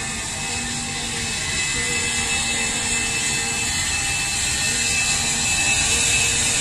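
Batik Air twin-engine jet airliner passing close on its take-off roll: steady high turbofan whine over rushing jet noise, growing louder.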